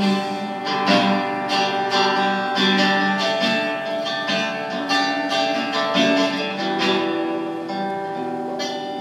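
Acoustic guitar strumming chords in the instrumental close of a song, the chords ringing on and slowly getting quieter.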